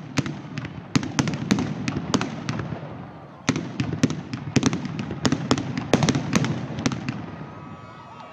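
Black-powder muskets firing in quick, ragged succession along a line of shooters, each sharp crack trailed by a low rumble. There is a brief lull about three seconds in, then a second dense run that thins out near the end.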